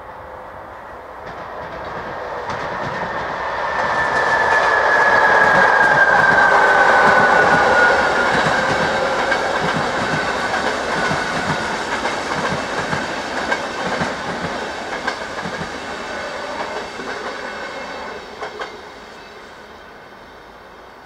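Electric-hauled passenger express passing, rising to a peak as it draws level. A high whine drops in pitch as it goes by, then the coaches clatter over the rail joints in a long run of clickety-clack that fades away, ending in a couple of last clicks.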